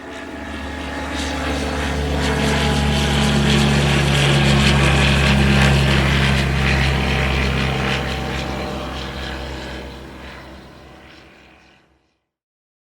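Propeller aircraft flying past: a droning engine note with a steady low hum that swells as it approaches, peaks in the middle and fades away as it recedes.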